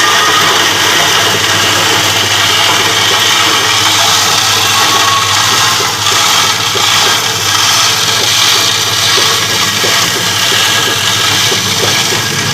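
Ice crusher machine running steadily: a constant low motor hum under a dense, grinding hiss.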